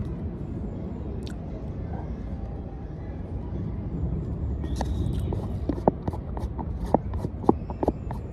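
Steady outdoor rumble, with a run of sharp clicks and crackles in the second half from eating and handling takeaway food.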